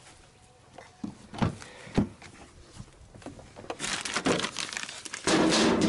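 Two short knocks, then from about four seconds in a plastic packaging bag crinkling and rustling as the new lower control arm wrapped in it is picked up and handled.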